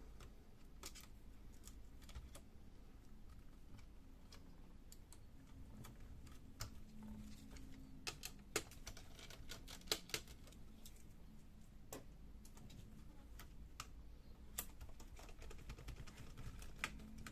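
Faint, irregular small clicks and taps from hands and a tool working inside an opened laptop, unplugging the main board's cable connectors, with a few sharper clicks in the middle and near the end.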